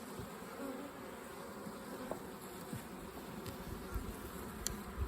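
Honeybees buzzing steadily in a colony opened for inspection, with a couple of soft low thumps about four and five seconds in.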